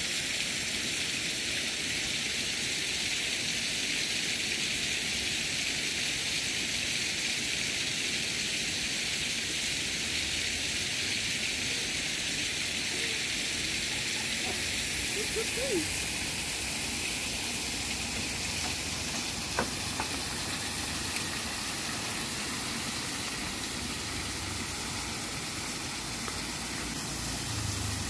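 Steady hiss of a shallow stream's running water, with one sharp click about two-thirds of the way through.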